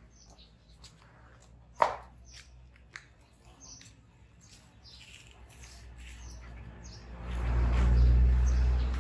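Short high chirps scattered throughout, a sharp knock about two seconds in, and a low rumble swelling over the last two seconds.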